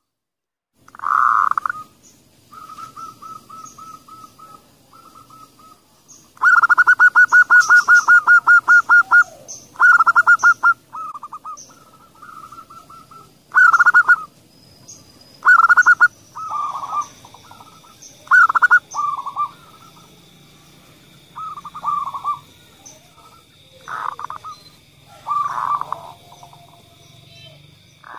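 Zebra doves cooing: phrases of rapid staccato notes repeated again and again, the longest and loudest a fast trill of about three seconds some six seconds in. A faint steady high tone comes in about halfway through.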